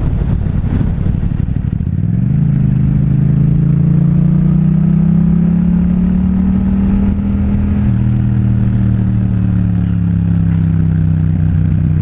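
Yamaha FZ-07's parallel-twin engine running through a Two Brothers full exhaust under way. About two seconds in it picks up sharply under throttle and climbs, then holds a steady drone. It drops to a lower pitch about eight seconds in and falls off near the end as the throttle closes.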